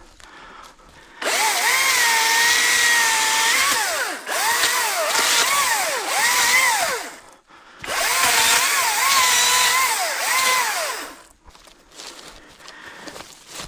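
Cordless ECHO DCS-2500T top-handle chainsaw cutting in three bursts. The electric motor's whine dips in pitch each time the chain bites and rises again as it frees.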